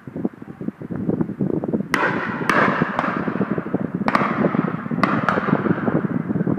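Shotguns firing at a driven game shoot: a string of about seven shots over roughly three and a half seconds, starting about two seconds in, each with an echoing tail. Steady wind buffeting the microphone runs underneath.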